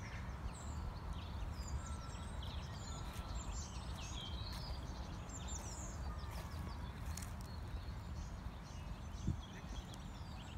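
Several small birds singing and chirping, many short high calls overlapping, over a steady low rumble.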